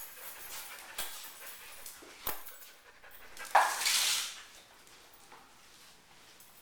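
Sounds of a leashed dog moving about on a tile floor, with two sharp knocks in the first half and one loud, short sound a little after three and a half seconds in.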